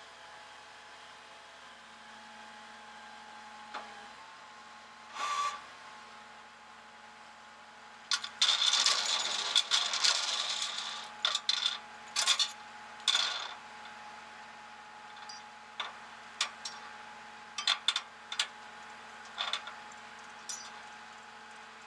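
Tie-down chain and hooks clinking and rattling against the steel flatbed deck of a tow truck as a car is secured, with a longer scraping, rattling stretch about eight to eleven seconds in and scattered sharp clinks after it. A steady hum of the tow truck's idling engine runs underneath.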